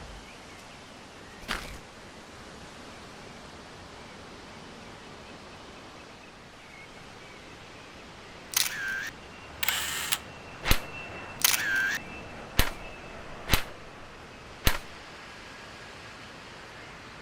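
A steady hiss with a short thump near the start. About halfway through comes a run of mechanical clicks and short rattling bursts, the last four single sharp clicks about a second apart.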